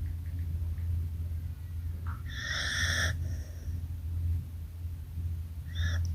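Sleeping dog snoring, with a steady low rumble and a high whistling wheeze on the breath about two seconds in, then a shorter whistle near the end.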